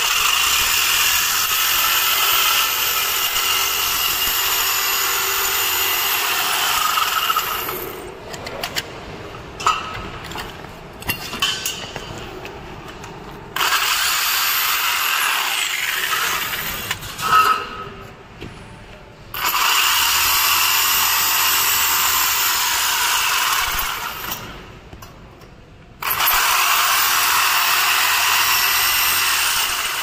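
DeWalt DW331 jigsaw cutting through a galvanized steel perforated cable tray in four runs of a few seconds each. Between the runs the saw stops and there are a few sharp metal clanks as the tray and saw are handled.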